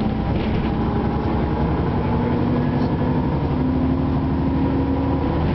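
Ikarus 260 city bus's diesel engine running under way, heard inside the passenger cabin. Its note climbs steadily as the bus pulls, then drops back near the end.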